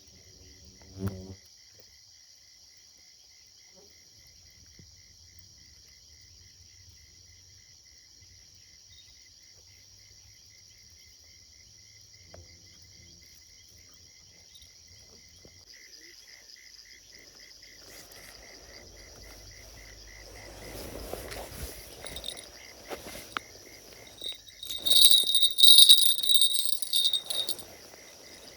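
Crickets chirping steadily in a night chorus. Near the end a small bite bell on a fishing rod jingles loudly in several bursts, with rod-handling knocks and rustling, the sign of a fish taking the bait.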